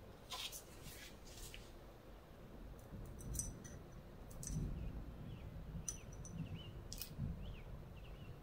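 Faint, scattered clicks and taps of metal tweezers against a glass jar and the shells and gravel inside it, with a few soft low knocks.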